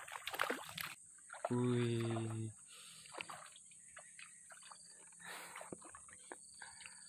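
Hooked fish splashing and thrashing at the surface of a shallow pond, a quick run of sharp splashes in the first second, then fainter scattered splashes as it is drawn through the water.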